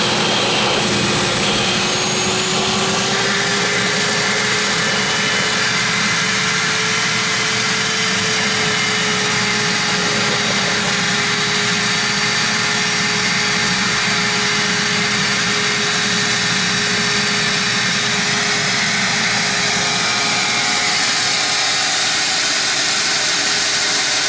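Wet/dry shop vacuum running steadily, sucking on an air conditioner's condensate drain line to pull out a clog; its motor pitch rises a little in the first few seconds, then holds.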